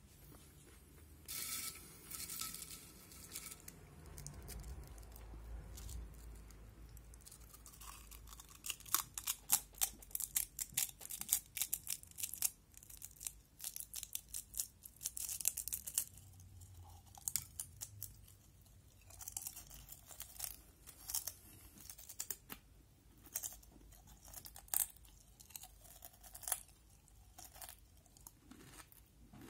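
Potato chips crunched and chewed close to the microphone: a brief papery rustle about two seconds in, then long runs of rapid crackling crunches.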